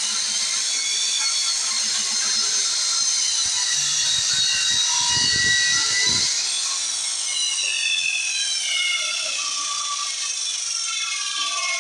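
Handheld circular saw cutting a wooden panel door: a steady, high whine that shifts in pitch through the cut.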